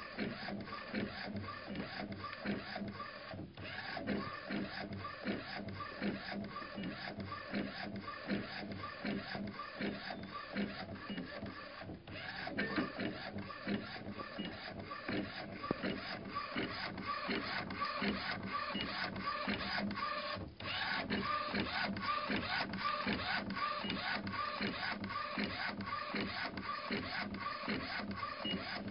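Golf ball printing machine running: a steady mechanical hum with a dense, regular clatter of clicks, repeating about twice a second.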